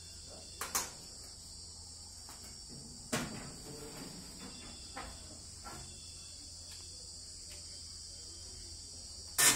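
Steady high-pitched chirring of insects, with a few short knocks, the sharpest and loudest just before the end.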